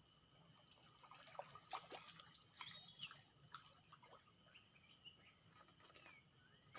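Faint, steady drone of insects at a few high pitches, with a scatter of small clicks, ticks and short chirps, busiest about one to three seconds in.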